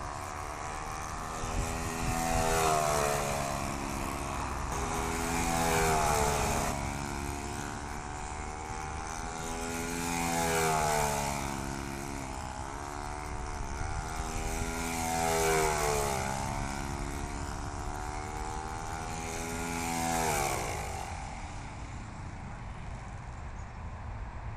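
Saito .56 four-stroke glow engine turning a three-blade prop on a control-line stunt model plane, running as the plane circles the pilot: its note grows louder and bends in pitch once a lap, about every four to five seconds. About twenty seconds in, the engine note falls away and stops.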